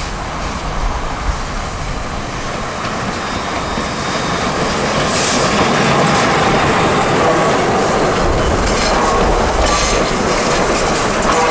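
C11 steam tank locomotive passing close by, followed by its passenger coaches clattering over the rail joints. It grows louder as the engine draws level about 5 seconds in, and some wheel squeal comes in during the second half.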